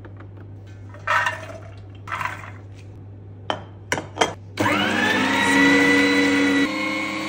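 A few rattles and clicks. Then, a little past halfway, an electric meat grinder's motor switches on with a whine that rises as it spins up and then runs steadily. Near the end its tone and level change abruptly as it grinds soaked chickpeas.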